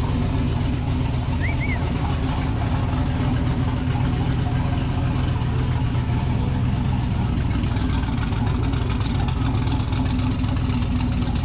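Twin-turbo LS V8 of a square-body Chevy truck running steadily at low revs, without any hard revving.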